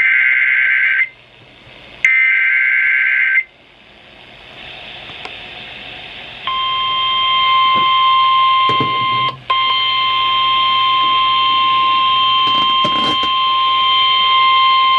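Emergency Alert System warning: two screeching digital SAME header bursts, each a little over a second, then a rising hiss of static. About six and a half seconds in, the steady 1050 Hz weather-radio warning alarm tone starts and holds, with one brief dropout partway through.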